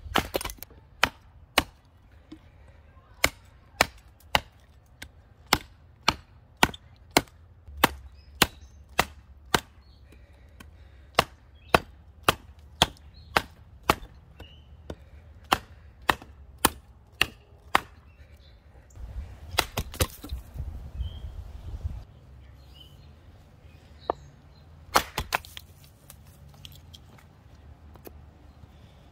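A hatchet chopping at the end of a wooden pole on a chopping block, carving a spear point: a steady run of sharp wooden strikes, about two a second. After a pause there are a few more sharp strikes near the end.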